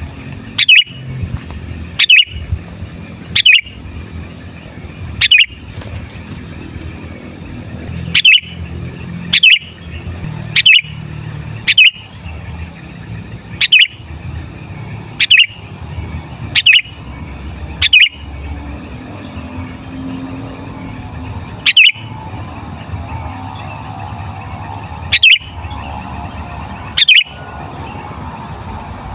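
Sooty-headed bulbul (kutilang) calling over and over: short, loud, downward-sweeping notes, about fifteen of them at irregular gaps of one to four seconds. A steady faint high hiss runs underneath.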